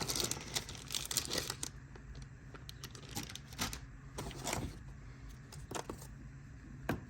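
Plastic packaging crinkling and rustling, with scattered light clicks and rattles of a wiring harness and its connectors being handled and unpacked.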